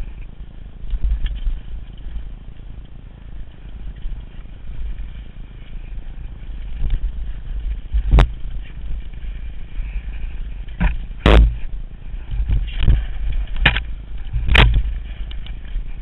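Downhill mountain bike riding down a dirt trail, with steady wind rumble on the helmet camera's microphone and tyre noise. In the second half a string of sharp clatters sounds as the bike jolts over rocks and bumps, the loudest about eleven seconds in.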